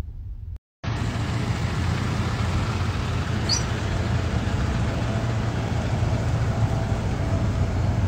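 Motor vehicle engines and road noise: a steady low rumble with a hiss on top, starting after a brief break just before one second in.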